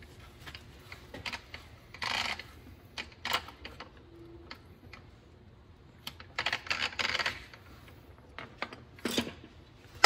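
Irregular light clicks and short clattering rattles of handling noise, in a few brief clusters with pauses between them.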